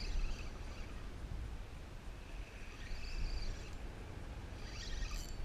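Wind rumbling on the microphone, with faint high chirps about three seconds in and again near the end.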